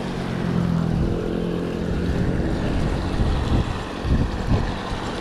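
Water pouring from a culvert outflow into a pool, with wind buffeting the microphone. A steady engine hum joins it for about two seconds early on, and a few dull thumps come near the end.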